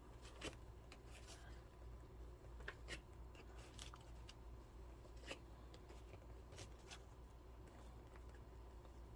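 Faint, scattered clicks and rustles of plastic cards being slid into and handled in the card slots of a fabric wallet, over a low steady hum.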